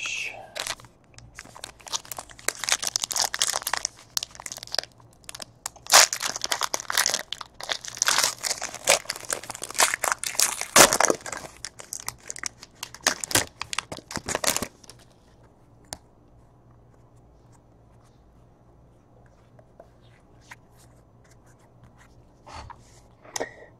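The gold foil wrapper of a trading-card pack being torn open and crumpled by hand: crinkling and tearing in repeated bursts, stopping about fifteen seconds in.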